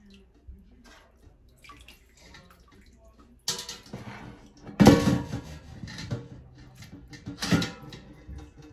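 Chicken broth splashing and dripping as a wire skimmer lifts cooked chicken and vegetable pieces out of the pot and drops them into a mesh strainer. It starts about three and a half seconds in, with louder splashes about five seconds in and again near the end.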